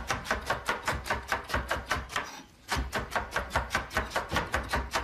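Rapid, even tapping or knocking, about seven strikes a second, in two runs split by a short pause a little past the middle.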